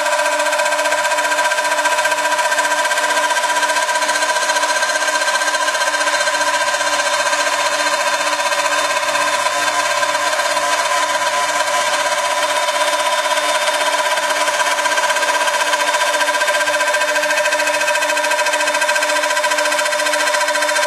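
CNC router spindle running and cutting through 40 mm MDF: a steady, unbroken whine made of several held tones over a hiss of cutting and dust extraction.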